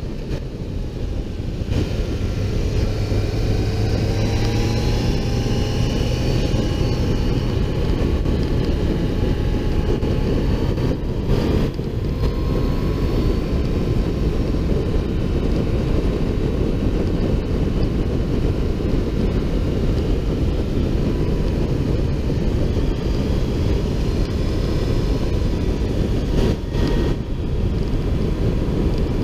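Motorcycle riding at speed, heard from a camera on its own fairing: steady wind rush over the microphone with the engine's note underneath. The engine note rises over the first several seconds as the bike accelerates, and rises briefly again partway through.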